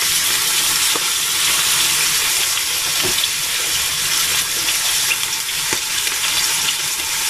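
Monkfish chunks and garlic cloves sizzling in hot olive oil in a stainless steel pan, a steady hiss with a few small crackles, as the fish browns on its first side.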